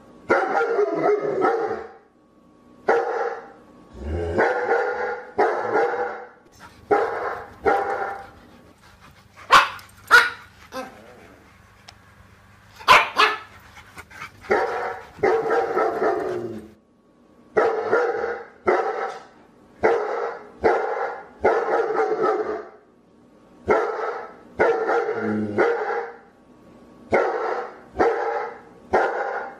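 A dog barking over and over, mostly in quick runs of two or three barks with short pauses between. A few short, sharp sounds come about ten and thirteen seconds in.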